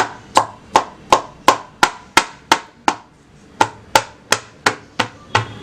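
Knife tip jabbing raw chicken wings over and over, each jab ending in a sharp knock on the surface beneath, about three a second with a brief pause about three seconds in.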